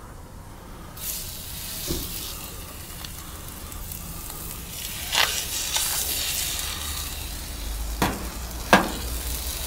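Venison schnitzels sizzling as they are laid onto a hot stainless-steel teppanyaki plate, seared in fat beside frying spätzle. The sizzle starts about a second in and flares up sharply a few times.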